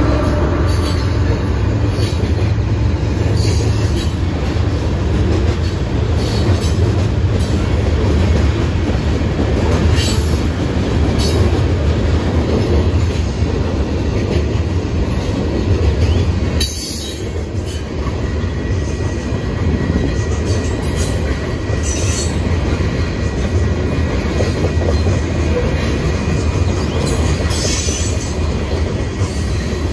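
Loaded covered hopper cars of a grain train rolling past close by, coasting downgrade: a loud, steady rumble of steel wheels on rail with clickety-clack over the joints. Short high-pitched wheel squeals come and go throughout.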